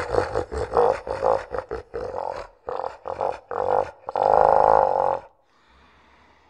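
A human laugh slowed to half speed into a deep monster laugh: a quick run of low, pitched "ha" pulses, then one longer drawn-out note that stops about five seconds in, leaving a faint low hum.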